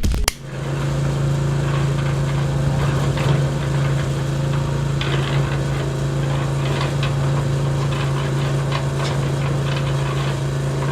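Small motor running with a steady, unchanging hum, with light ticks and rattles over it. A few sharp knocks come right at the start.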